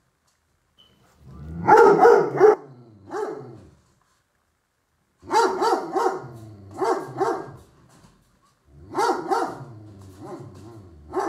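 Puppy barking in three runs of four or five sharp barks each, with short pauses between the runs.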